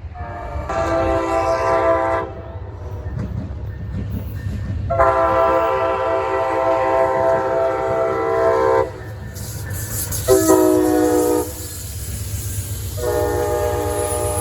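Amtrak locomotive's multi-chime air horn sounding four blasts, long, long, short, long: the standard grade-crossing warning. The train's low rumble runs underneath.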